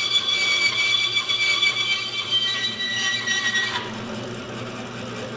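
Small homemade band saw running and cutting a wooden dowel, with a steady high whine that cuts off abruptly about four seconds in, leaving a quieter low hum.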